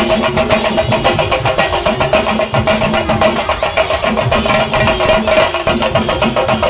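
A Kerala drum troupe playing chenda drums in a fast, dense, unbroken rhythm, with a steady pitched tone held over the drumming.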